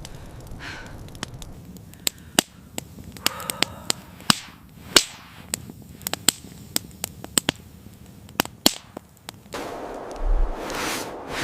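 A series of sharp, irregular snaps and clicks over a faint background hiss, giving way to a louder rush of noise near the end.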